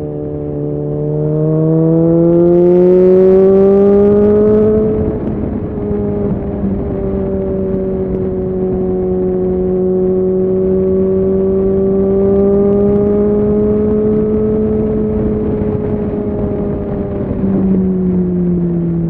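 Suzuki Bandit 650's inline-four engine accelerating, its note rising for a few seconds, then easing back about five seconds in and holding a steady cruise. The note drops as it slows near the end.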